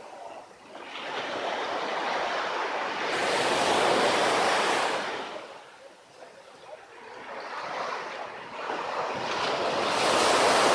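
Surf on a beach: waves washing in and drawing back, a rushing hiss that swells and fades twice.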